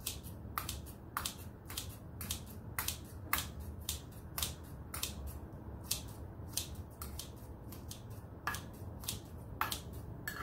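Scissors snipping over and over through soft cooked pumpkin in a ceramic bowl, about two crisp snips a second, chopping the stringy flesh into a puree.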